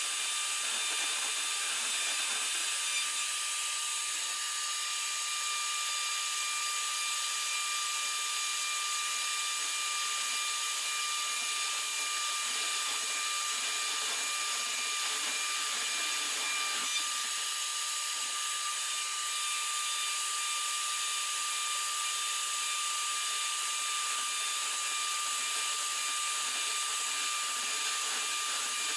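Small CNC router's spindle running steadily with a high whine, together with the rushing of its dust-extraction vacuum, while it mills acrylic.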